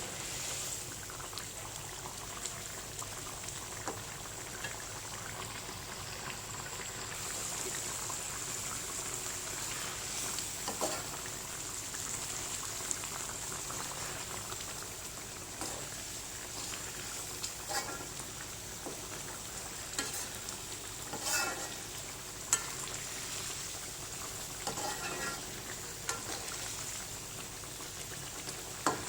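Chicken curry frying in a pan: a steady sizzle, broken by occasional short clicks and scrapes.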